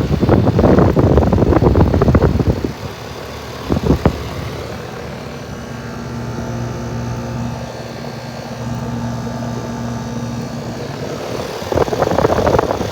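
Armstrong Air central air conditioner running: a steady hum from the unit, with a short knock about four seconds in. A loud rushing noise covers it for the first few seconds and again near the end.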